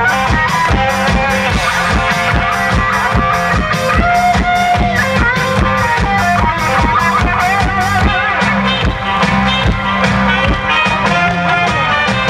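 Trot music, an instrumental passage with a steady, even drum beat under a wavering melodic lead line.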